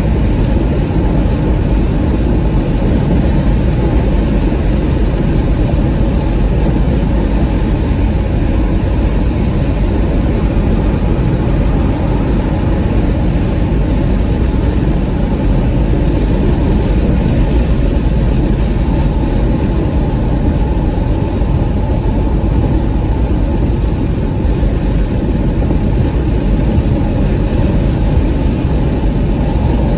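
Steady cabin noise of a 2021 Porsche Macan S cruising at highway speed, heard from inside the car: tyre and road roar with a low engine drone.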